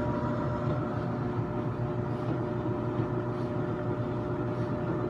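Kenmore stackable washer-dryer running: a steady mechanical hum with several constant tones, unchanging throughout.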